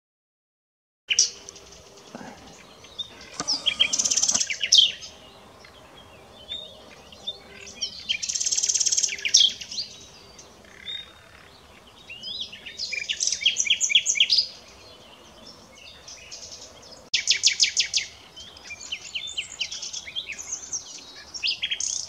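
Common nightingale (Luscinia megarhynchos) singing: separate phrases every few seconds, several of them fast runs of rapidly repeated notes, with short pauses between. The song starts about a second in.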